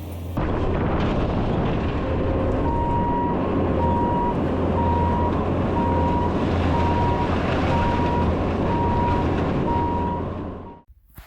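Bobcat T650 compact track loader's diesel engine running under load with a low drone, its reversing alarm beeping steadily from about two seconds in. The machine sound cuts off abruptly near the end.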